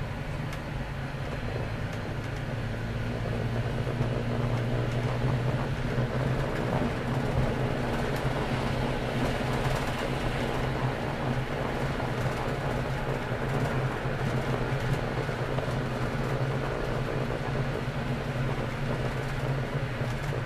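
Tram running along its track, heard from the driver's cab: a steady low hum under the rushing noise of wheels on rails. It gets louder over the first few seconds, then holds steady.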